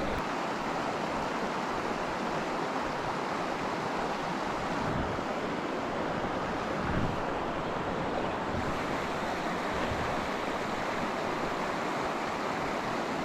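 Steady rush of a mountain trout stream's water running over rocks, an even hiss at constant level.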